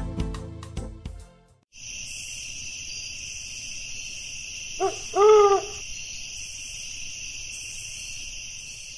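Reggae music stops about a second in. Then an owl hoots once, a short note followed by a longer, louder one, over a steady high-pitched chirring.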